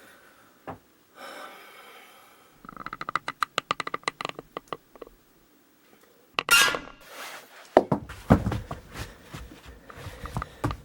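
A short creak, then a quick run of clicks, a louder brief squeak-like sweep and a string of low knocks and clicks.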